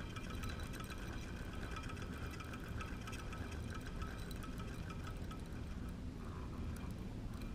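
Steady outdoor ambience of wind rumble on the microphone and water, with faint high tinkling tones over it that fade out about six seconds in.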